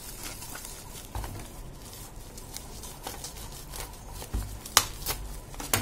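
Bubble wrap being handled and peeled off a small cardboard box, crinkling with scattered light crackles, a couple of soft low bumps and a sharp click a little before the end.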